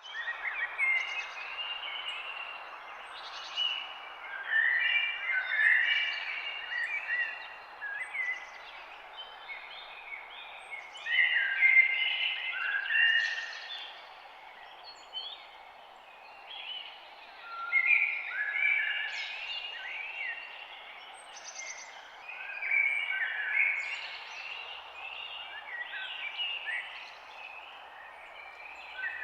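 Several songbirds chirping and trilling in bouts of a few seconds, over a steady background hiss.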